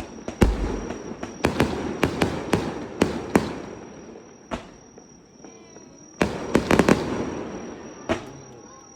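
Fireworks bursting: a rapid run of sharp bangs, each trailing off with a ringing smear. After a lull of more than a second, a tight cluster of bangs comes about six seconds in.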